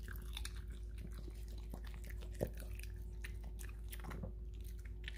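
A small dog chewing and smacking on a bite of prime rib meat: faint, irregular wet clicks, with one sharper click about two and a half seconds in.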